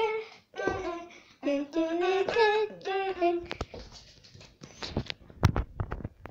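A child's voice, singing or chanting in short held notes for about three seconds. Then a run of knocks, clicks and rubbing as the phone is handled and moved, growing louder near the end.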